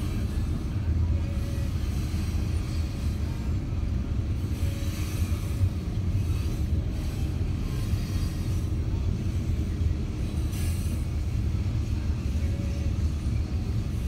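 Freight train of covered grain hopper cars rolling past, a steady low rumble of steel wheels on rail.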